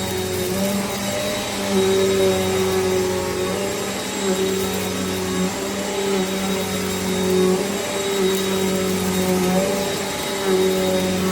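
Eureka NEU10AE4 bagless upright vacuum cleaner running steadily: a continuous motor noise with a thin high whine, its low hum wavering every second or two.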